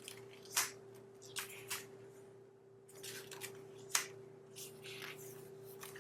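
Pages of a spiral-bound junk journal being turned by hand, paper and vellum sheets swishing and rustling in a series of short strokes, over a faint steady hum.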